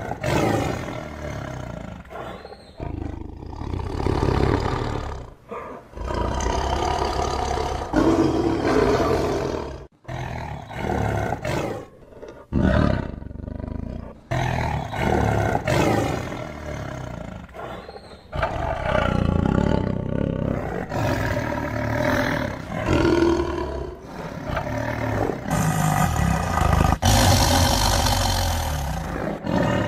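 Tigers roaring, a string of loud deep calls from separate takes, each breaking off suddenly into the next.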